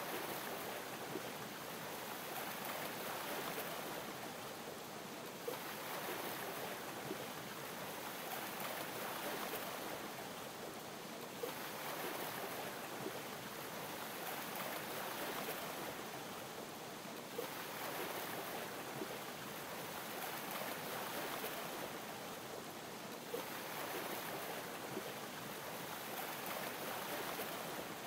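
Waves lapping, the wash swelling and fading about every six seconds over a steady hiss, with a small tick about every six seconds.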